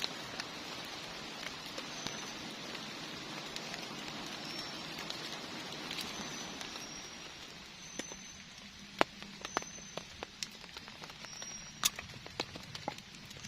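Heavy rain falling as a steady hiss that eases about eight seconds in, leaving scattered sharp ticks and crackles, with a few brief high chirps.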